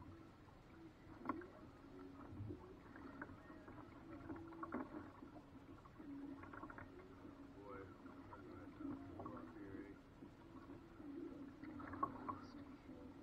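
Faint water gurgling and lapping against the hull of a small paddled boat on a river, with a few light knocks scattered through.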